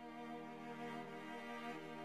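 Background music of slow, long-held bowed string chords, violin and cello.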